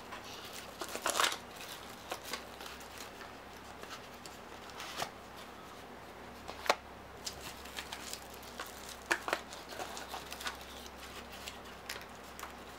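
Scattered crinkles and light clicks from packaging being handled: a plastic bag of dice and cardboard boxes being moved about, with pauses between the sounds.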